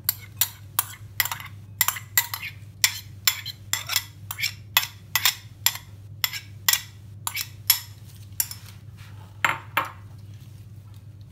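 Metal spoon knocking and scraping against a glass bowl, a quick run of clinks about three a second as grated carrot is scraped out of it. The clinks stop about ten seconds in.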